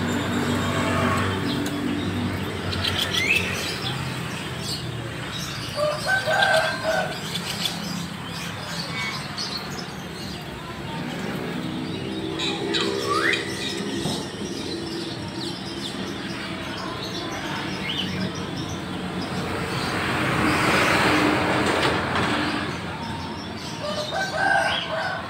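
Many caged birds chirping and whistling together over a steady background din, with a couple of short rising whistles. A broad rushing noise swells and fades near the end.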